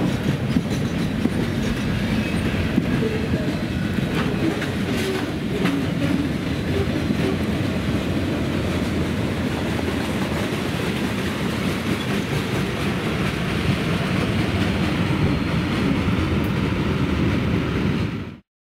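Mixed freight cars of a Canadian National train (autorack, boxcars, covered hopper, tank cars) passing at close range, steel wheels running steadily on the rails with a few sharp metallic clanks in the first six seconds. The sound cuts off abruptly near the end.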